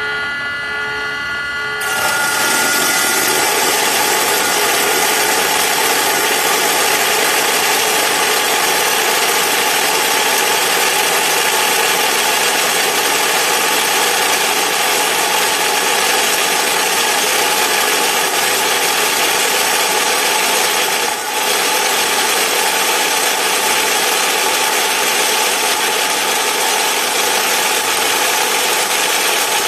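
Dekton brushless-motor cutting saw with an alloy blade. For about two seconds the motor whines, spinning free, then a loud steady cutting noise takes over and runs on, with one brief dip about two-thirds of the way through.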